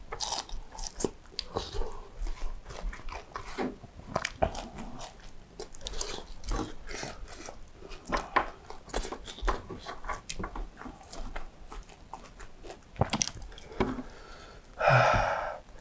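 Close-miked chewing and biting of fried chicken, with many small wet mouth clicks and smacks. Near the end a short, louder rushing noise stands out.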